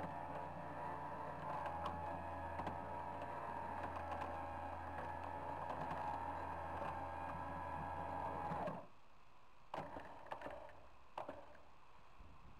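A motor running steadily with a low hum and a wavering whine, cutting off suddenly about nine seconds in. A few short knocks follow.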